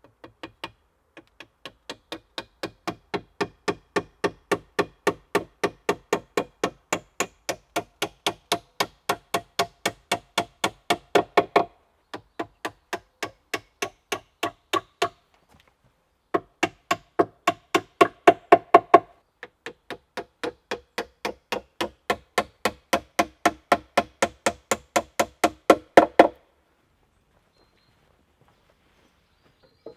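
Hammering on a log bunk-bed frame: a steady series of sharp wooden knocks, about three a second, in four runs with short pauses between them, each run growing louder toward its end.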